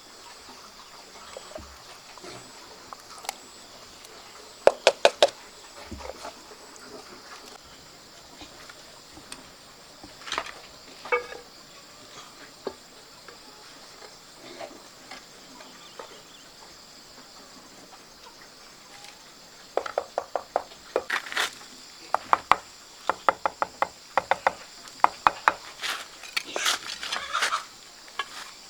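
Sharp knocks in quick bursts: three together about five seconds in, a few more near the middle, and a long run of rapid knocks over the last third. A steady high insect chirring runs behind them.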